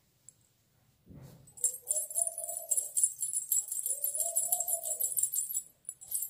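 Silver anklets and bridal toe rings with tiny ghungroo bells jingling rapidly as the feet shuffle in flip-flops, starting after a soft thump about a second in and stopping shortly before the end. A low rising-and-falling hooting tone sounds twice underneath.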